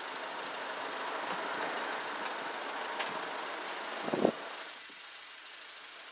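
Virgin class 390 Pendolino electric train rushing past at the level crossing, a steady roar of wheel and air noise that cuts away sharply about four and a half seconds in as the train clears. There is a sharp click about three seconds in and a brief loud thump just before the noise drops.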